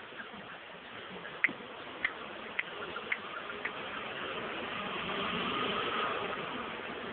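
Five sharp ticks about half a second apart, then a passing engine sound that swells and fades.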